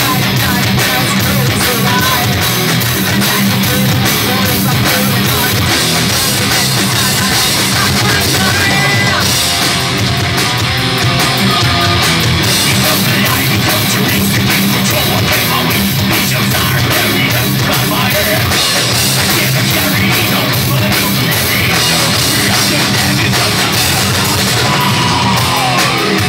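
Heavy metal band playing live: distorted electric guitars, bass guitar and drums, with vocals over them. The music is loud and continuous.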